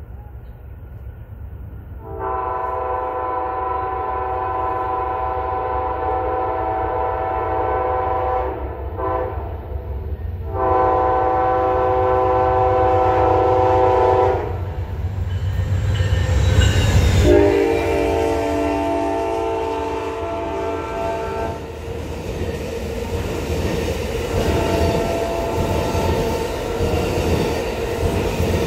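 Locomotive multi-chime air horn sounding in long blasts as a train approaches. Partway through there is a loud rush as the locomotive passes, and the horn drops in pitch. After that comes the steady rumble and clatter of the train's wheels on the rails.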